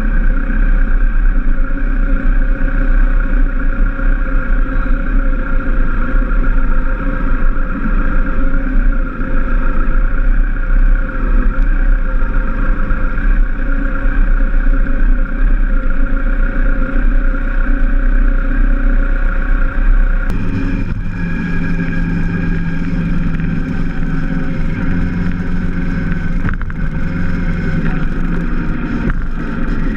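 Motorcycle engines rumbling, heard from a rider's camera moving at parade pace in a group of motorcycles, with wind noise on the microphone. About twenty seconds in the sound changes to a steadier engine drone at an even cruising speed.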